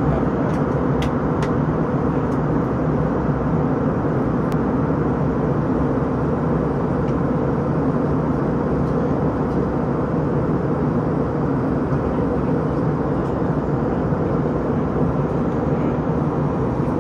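Steady cabin noise inside an Airbus A321 airliner in cruise: a constant rush of airflow and engine drone. A few faint ticks in the first few seconds.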